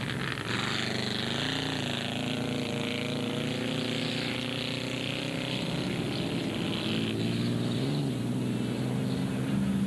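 Racing car engines running hard on a dirt track, their pitch climbing slowly as a car accelerates, with tyre and gravel noise.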